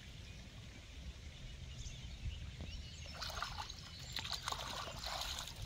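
Shallow river water splashing and sloshing around hands as a caught fish is let go, in irregular splashes starting about three seconds in.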